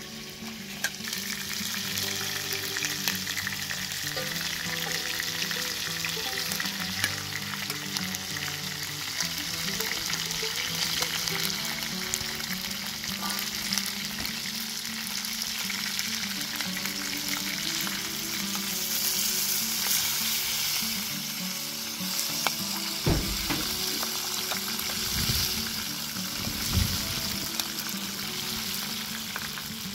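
Chicken drumsticks and sliced onions sizzling as they fry in hot oil in a wide metal pan, with a metal slotted spoon stirring and scraping through them.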